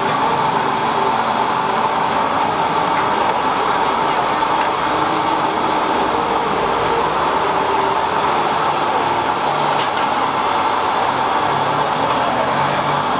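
Steady street traffic noise, a constant drone of passing vehicles.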